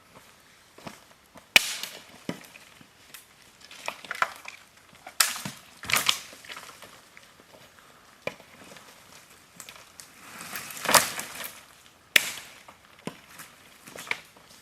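Dry wood and brush being snapped and crunched: irregular sharp cracks and crunches, several louder snaps among quieter rustling.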